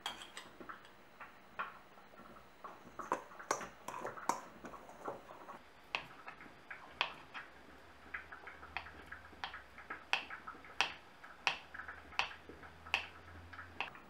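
Kitchen handling sounds: light clinks of a spoon and ceramic jar against a stainless steel mixing bowl, then a knife cutting a block of butter on a wooden board, knocking evenly about every 0.7 s. A faint low hum joins about halfway through.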